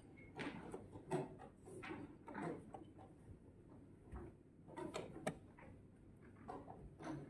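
Faint background of a chess tournament hall: scattered light clicks and knocks, the sharpest about five seconds in, over a low room murmur.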